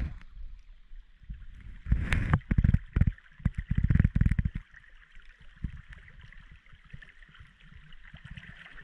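Water sloshing and splashing as a person wades in a shallow river, loudest in a cluster from about two to five seconds in, then settling. A steady high hiss sits under it throughout.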